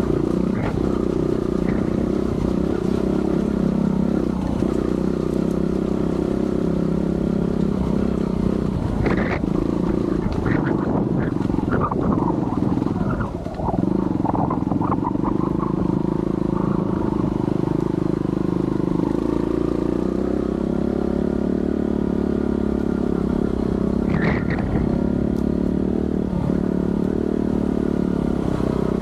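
Yamaha TY-S125F trials motorcycle's single-cylinder four-stroke engine running steadily under throttle on an uphill climb. About halfway through the revs change and dip briefly, and there are a few short knocks and clatters.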